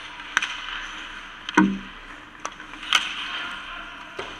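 Ice hockey play: about five sharp clacks of sticks and puck, the loudest about a second and a half in with a short low ring after it, over a steady hiss.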